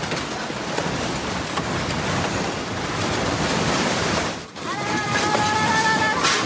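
A building and its contents rattling and clattering steadily in strong earthquake shaking. About four and a half seconds in the sound dips briefly, then a steady high tone holds for just over a second, followed by a sharp clatter near the end.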